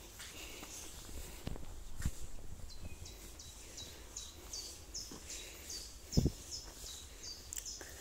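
A songbird singing a rapid run of the same high two-part note over and over, about two to three a second, starting about three seconds in. Footfalls on a dirt woodland path knock faintly, with one louder low thump a little after six seconds.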